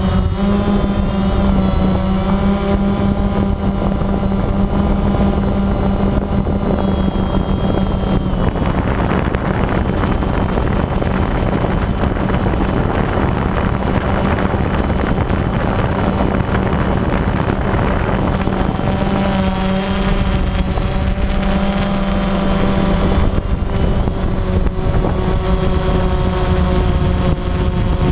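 DJI Phantom quadcopter in flight, its four electric motors and propellers giving a steady, loud buzzing hum, heard from the camera mounted on the drone. From about 8 s to about 19 s a rushing noise joins the hum.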